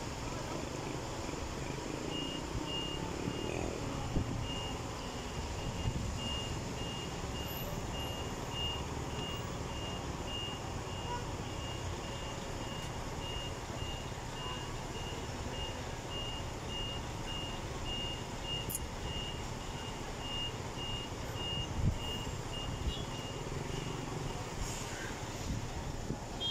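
A vehicle's reversing alarm beeping steadily, about two beeps a second, for most of the stretch over the low rumble of engines running.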